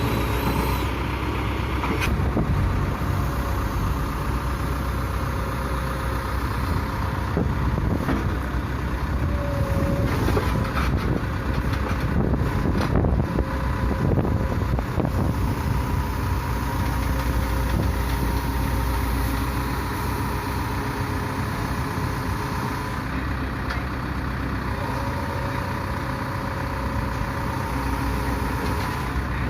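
Caterpillar 426F2 backhoe loader's diesel engine running steadily, with a faint whine that comes and goes and a few knocks and clanks near the middle.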